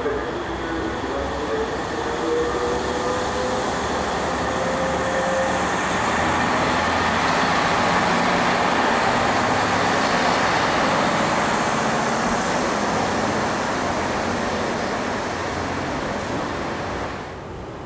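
Train running through a station: a steady rumble and rush of noise that swells through the middle and dies away near the end, with a faint, slowly rising whine in the first few seconds.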